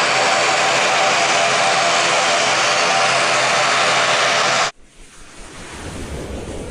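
McDonnell Douglas MD-11 freighter's three jet engines running at climb power just after takeoff: a loud, steady roar with a few steady tones. It cuts off suddenly about two-thirds of the way through, giving way to a quieter low rumble with a rising whoosh near the end.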